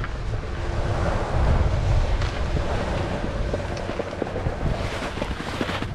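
Wind buffeting the microphone of a GoPro while snowboarding downhill, with the steady hiss of the board sliding over packed snow. The low rumble swells about a second in and eases after a couple of seconds.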